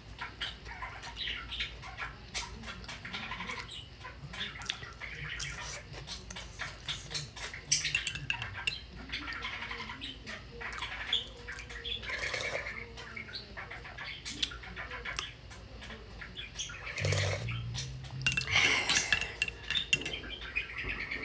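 Close-up eating sounds: chewing crackers and a metal spoon clinking in a ceramic mug of milk, many short clicks throughout, with a pet bird calling now and then.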